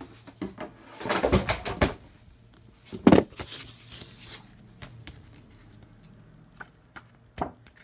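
Handling noises of objects being moved and set down on a table: a rustle about a second in, one sharp knock about three seconds in, then a few light clicks.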